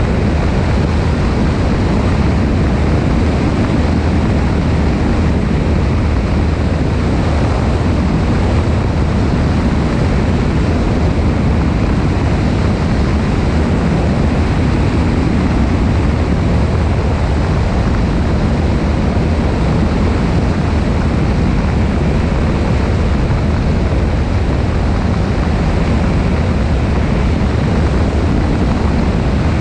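Steady drone of a Cessna 172's engine and propeller under a heavy rush of wind over a wing-mounted camera's microphone, unchanging throughout.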